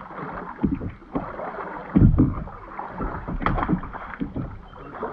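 Double-bladed kayak paddle dipping and splashing in the water, a stroke every second or so, with a heavy low thump about two seconds in.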